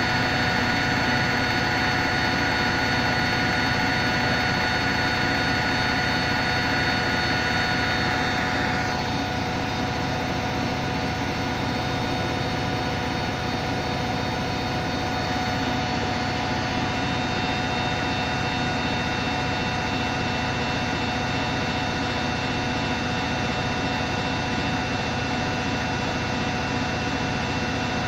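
Hoover Electronic Automatic de luxe washing machine running steadily on its spin-dry cycle, a motor hum with a high whine. The whine drops out about nine seconds in and the running continues slightly quieter.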